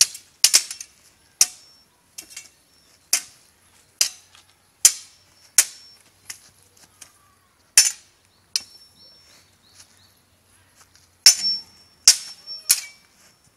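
Swords clashing in a sparring bout: about a dozen sharp, irregular strikes, some in quick doubles. Several of them leave a short, high metallic ring.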